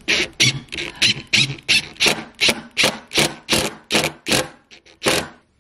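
DeWalt Atomic cordless impact driver, set to its second speed, driving a screw into a particleboard panel in short bursts about three times a second, stopping about five seconds in once the screw sits flush.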